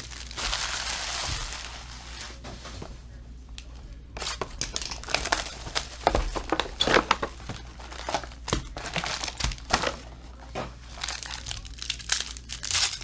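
Foil trading-card pack wrappers crinkling as they are handled and torn open. A crinkly rustle at the start, a quieter moment, then a run of sharp crackles through the second half.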